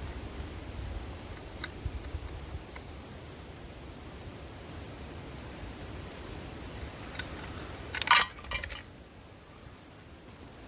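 Outdoor ambience with a low, even rumble, a few faint clicks and a short burst of sharp clicking or knocking about eight seconds in, the loudest sound here.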